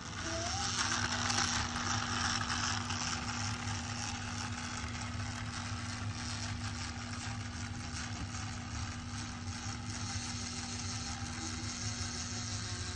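Battery-powered Magic Tracks toy cars running along their flexible plastic track, the small electric motor whirring steadily with a constant hum.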